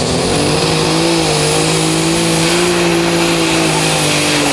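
Pulling tractor's engine running hard under load as it drags a weight-transfer sled down the dirt track. Its pitch holds fairly steady with slight wavers, and a high steady whine sits above it.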